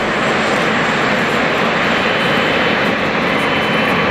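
Boeing 777 freighter's two General Electric GE90 turbofans running at taxi power as it rolls past close by: a steady jet rush, with a thin high whine that comes in about halfway through.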